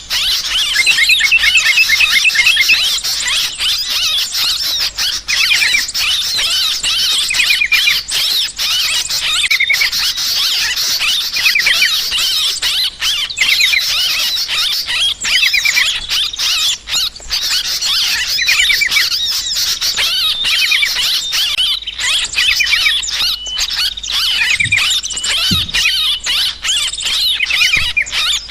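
Yellow-vented bulbuls giving noisy, agitated chattering calls, many overlapping without pause, the kind of 'ribut' flock racket used as a bird-trapping lure.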